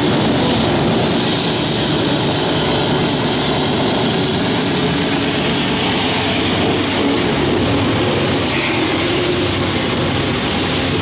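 Diesel locomotive running as the distributed-power unit at the tail of a loaded coal train passes below, its engine sound fading under a steady hiss of rain and wind noise.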